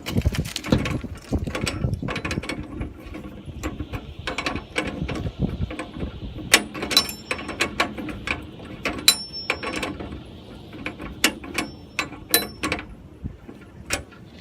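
Irregular metallic clicks and clinks of hand tools, nuts and bolts being worked on the metal bracket of a Granberg Alaskan chainsaw mill, some ringing briefly.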